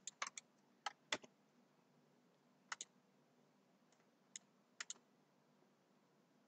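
Scattered clicks from a computer mouse and keyboard, single or in quick pairs at irregular gaps, over a faint steady hum.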